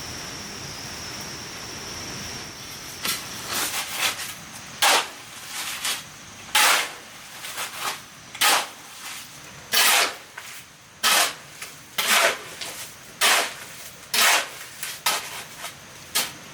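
A run of hard, sharp blows, roughly one a second with lighter taps between, like a hand tool striking a hard material; a steady high-pitched hiss carries the first few seconds before the blows begin.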